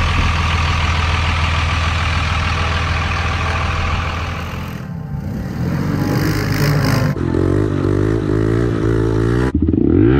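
Engines of off-road vehicles running and revving in a string of short clips, with abrupt cuts about five, seven and nine and a half seconds in. Near the end an engine revs up and down in quick swells.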